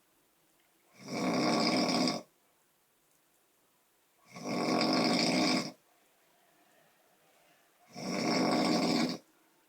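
Snoring: three loud snores, each just over a second long, coming about every three and a half seconds, with quiet breathing gaps between them.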